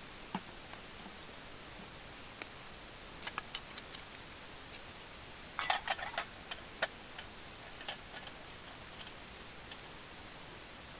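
Wood fire crackling in a fire pit: scattered sharp snaps and pops over a steady hiss, with a quick run of pops about halfway through.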